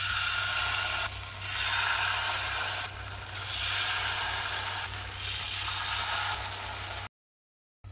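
Adai batter sizzling as it is ladled into hot oil in the cavities of a non-stick paniyaram pan, swelling and easing several times, over a steady low hum. The sound cuts off suddenly about seven seconds in.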